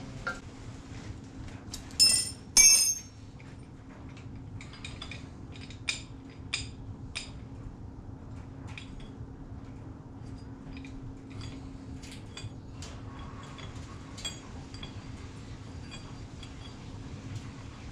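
Hand tools and metal engine parts clinking on a Norton Commando 750 during teardown: two sharp metallic clinks about two seconds in, then a scatter of lighter ticks and taps.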